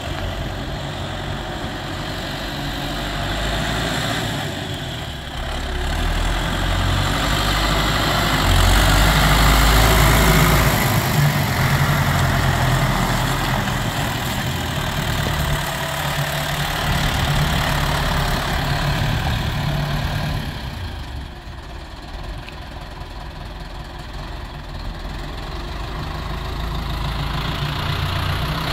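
Diesel engine of a 1980 Ford 7700 tractor running as the tractor drives past, getting louder to a peak about a third of the way through as it comes close, dropping away and then building again near the end as it turns back.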